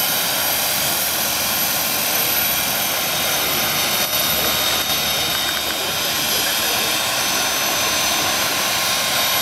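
Radio-controlled scale model of an Aérospatiale SA-315B Lama helicopter hovering low, its turbine giving a steady high whine over the rotor noise.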